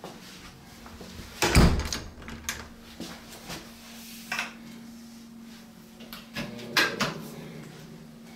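A few knocks and thumps, the loudest about one and a half seconds in and another near seven seconds, over a steady low hum.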